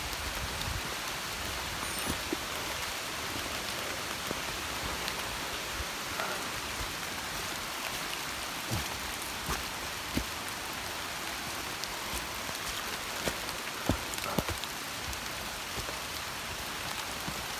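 Steady rain falling on rainforest leaves, an even hiss, with a few scattered soft thumps from walking and handling the camera.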